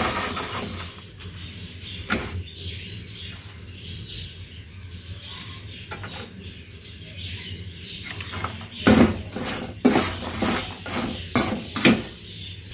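Crisp fried roti pieces crunching and rustling as a wire spider skimmer stirs them in a metal wok, with sharp clinks and scrapes of the skimmer on the pan, most of them in a burst near the end. The dry crackle is the sign that the roti has fried fully crisp.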